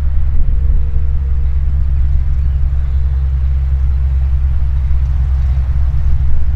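Single-engine Cessna light aircraft taxiing, its piston engine and propeller running steadily at low power with a deep, even drone.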